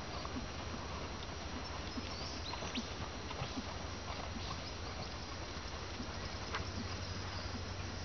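Soft, regular hoofbeats of a dressage horse trotting on a sand-and-gravel arena surface, over a steady hiss and low hum.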